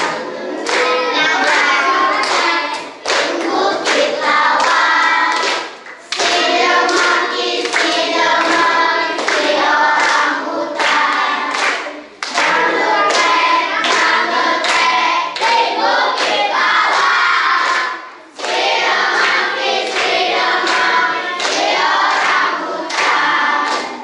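A class of primary-school children singing a song together in unison, in phrases of a few seconds with short breaks between them.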